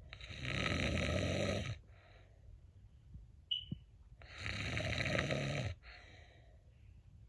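A cat snoring: two long snores about four seconds apart, each followed by a softer breath out. A short high-pitched squeak comes about halfway between them.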